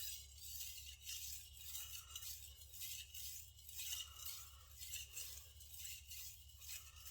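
Gyuto kitchen knife blade being stroked back and forth on a wet whetstone, a soft rhythmic scraping hiss at about two strokes a second.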